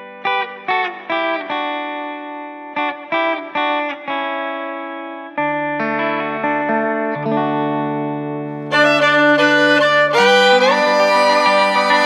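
Instrumental background music: a run of short plucked notes, then held notes, growing fuller and louder about nine seconds in.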